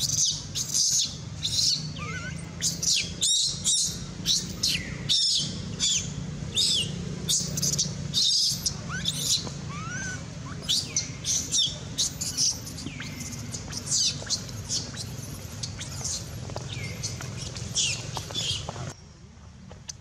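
Baby macaque crying in distress: a rapid run of short, high-pitched squeals and screeches, some sliding down in pitch, that stops abruptly near the end.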